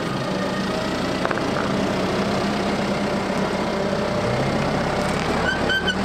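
Diesel tractor engine running steadily under load as it pulls a slurry tanker, its pitch rising slightly about four seconds in.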